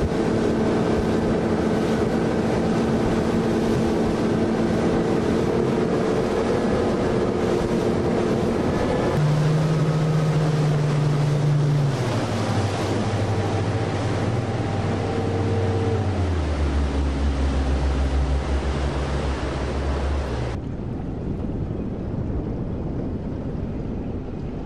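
Motorboat engine drone with wind buffeting the microphone and rushing water, as from a boat running fast alongside a foiling yacht. The engine hum drops in pitch in steps a few times, and the sound turns duller near the end.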